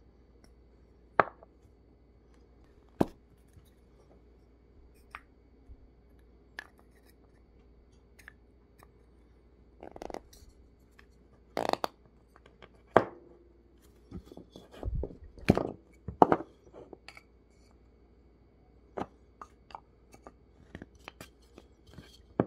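Painted wooden nesting-doll halves clicking and knocking as they are twisted and fitted together and set down on a wooden table: scattered sharp taps, busiest around the middle.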